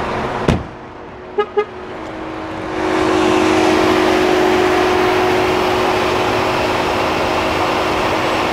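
A car door of a 2018 Ford Edge Titanium shuts with a thud, followed by two quick horn chirps. About three seconds in, a steady running whir with a low hum from the SUV's front end sets in and holds.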